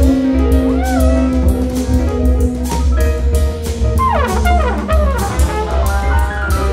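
Free jazz quartet music with a flugelhorn solo. The flugelhorn holds a long note, then plays a run of falling smears about four seconds in, over a constant low bass line and scattered drum and cymbal hits.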